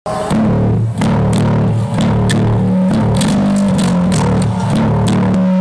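Rock band's bass line and drums playing loudly through the stage PA during a sound check, low sustained bass notes changing pitch under regular sharp drum hits.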